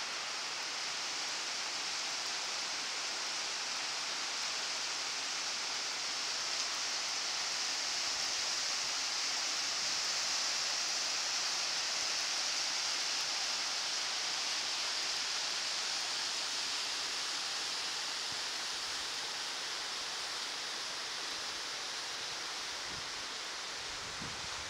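Steady hiss of a thin mountain waterfall pouring down a rock face onto boulders, a little quieter near the end.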